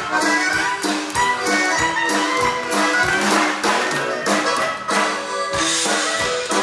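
A live band playing an upbeat number: a drum kit keeps a fast, steady beat of about three strokes a second under sustained instrumental melody.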